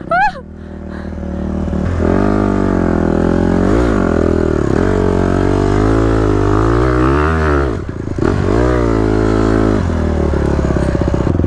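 Dirt bike engine revving up and down as the bike rides a rough, steep trail, its pitch rising and falling with the throttle. It grows louder about two seconds in, drops away briefly near the eight-second mark, then picks up again. A short high rising sound at the very start.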